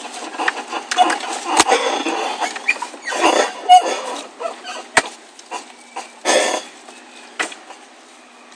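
Front suspension creaking and squeaking in irregular bursts while the car turns, with a few sharp clicks, heard from inside the cabin; busiest in the first half and dying down toward the end. It is the noise of a badly worn driver's-side front ball joint.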